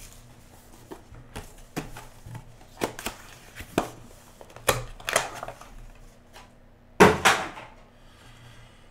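Trading-card box, paper slip and a hard plastic card holder being handled on a table: scattered light clicks and taps, with a louder clatter about seven seconds in.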